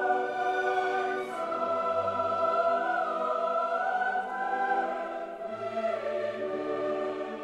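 Choral music with held chords that change every second or two; no firework bangs stand out.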